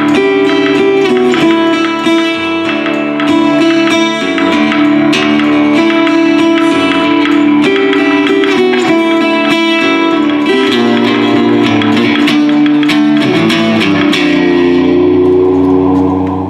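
Live instrumental music with fast, busy plucked-string notes. About fourteen seconds in it settles onto a held, ringing chord that starts to fade near the end.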